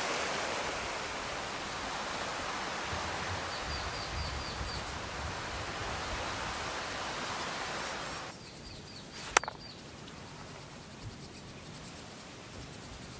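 Outdoor ambience: a steady rushing noise with a short run of high bird chirps, cutting about eight seconds in to quieter woodland ambience with more chirps and a single sharp click.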